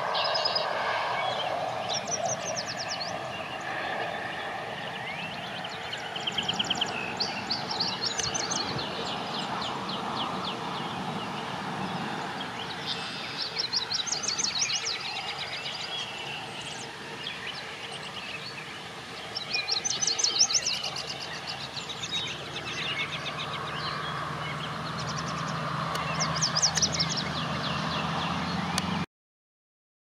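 Yellow warbler singing: short, fast phrases of high, sweet notes, repeated about five times a few seconds apart. A low steady hum comes in over the last few seconds, and the sound cuts off suddenly near the end.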